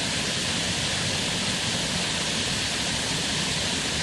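Steady rushing hiss of background noise, even in level throughout, with no distinct calls or pecking sounds standing out.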